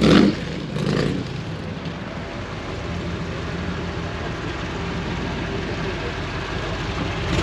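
Rat-rod hot rod coupe's engine running as the car rolls slowly past, a steady low engine note that grows gradually louder as it nears.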